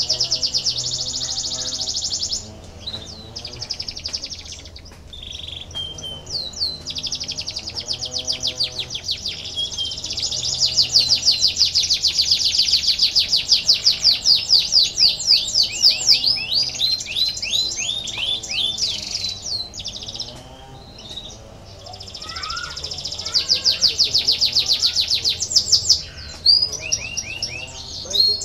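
Canary singing: long rolling trills of rapidly repeated high notes that change speed, broken by short pauses a few seconds in and again about two-thirds of the way through.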